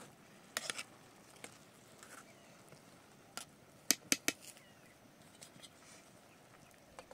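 A scattering of sharp clicks and knocks over a faint outdoor background, with three loud ones in quick succession about four seconds in.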